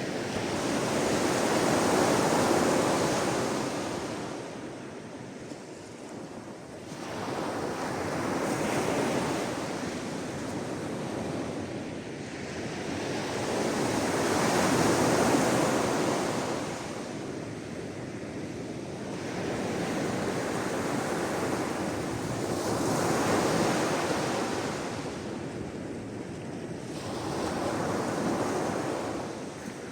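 Sea waves washing onto the shore in slow surges, each swelling and fading over several seconds, about four in the span.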